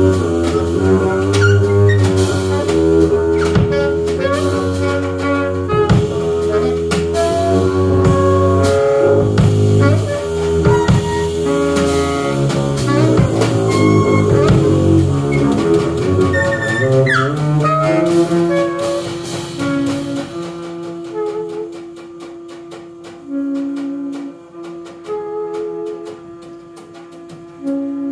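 Live jazz trio of saxophone, upright bass and drum kit playing together. About two-thirds through, the bass drops out and the music thins to long held saxophone notes over light cymbal ticks as the tune winds down to its end.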